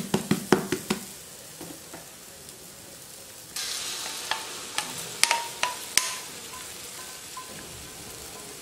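A plastic spatula scraping and tapping at a burnt pancake on the roti maker's nonstick plate: a quick run of scrapes and clicks in the first second. About three and a half seconds in, banana pancake batter poured onto the hot plate starts sizzling, with a few clicks over the hiss.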